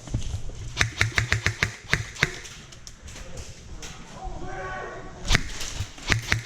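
Airsoft guns firing, sharp snapping shots in quick irregular strings, first in the opening seconds and again near the end, with a voice calling out in between.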